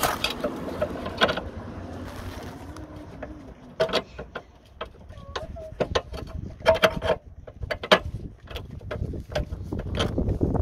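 Diesel fuel filter and its metal bracket being fitted back into place by hand in a car's wheel arch: scattered clicks and knocks of metal and plastic parts being handled and seated.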